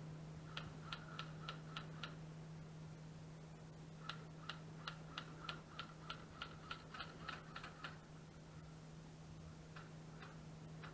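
Airsoft rifle firing rapid single shots, each a sharp click, about four a second: a run of about six, then after a pause a longer run of about sixteen, and two more near the end.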